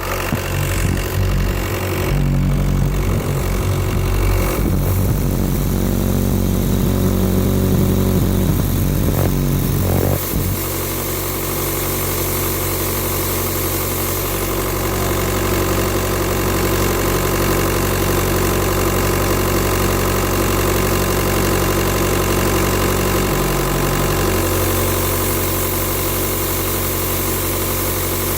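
Turbocharged VW-group car engine idling with a steady hiss, which the owner takes for a leak losing pressure somewhere around the turbo, EGR or vacuum pump. About ten seconds in, the engine note drops and gets a little quieter.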